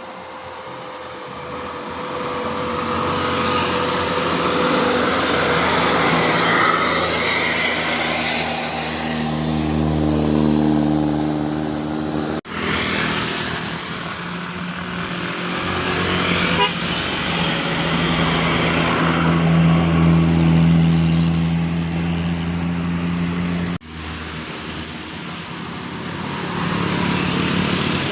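Large tour buses driving past, their diesel engines swelling as each approaches and fading again, heard in three separate passes with abrupt breaks between them.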